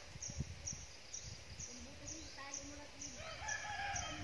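A rooster crowing: one long, held call that begins a bit over two seconds in. A high chirp repeats steadily about twice a second throughout.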